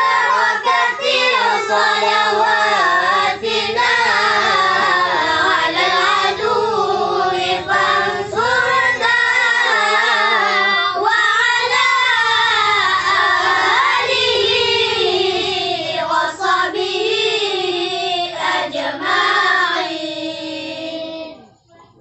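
A group of boys singing a sholawat, a devotional song praising the Prophet Muhammad, together in unison with no instruments. The singing runs loud and continuous, then trails off near the end.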